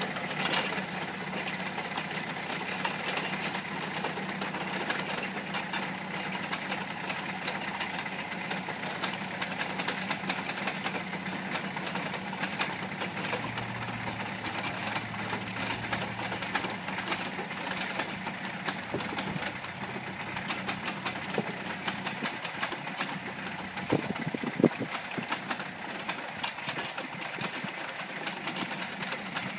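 Deutz D50 tractor's air-cooled diesel running steadily while it pulls a PTO-driven Schmotzer potato digger through the soil, with many small rattles and clicks from the digger. A couple of louder knocks come about 24 seconds in.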